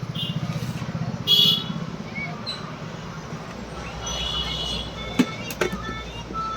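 A motor vehicle engine running at low speed, with a pulsing hum that fades after about two seconds. Two short high-pitched tones sound a little after one second and again near four seconds, and a few sharp light clicks come near the end.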